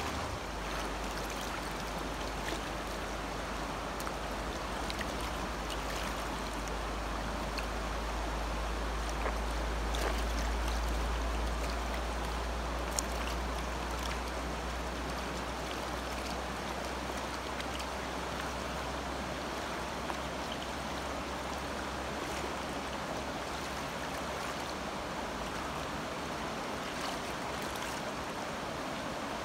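Missouri River floodwater flowing and rushing in a steady wash of noise, with a low rumble underneath that weakens in the last third.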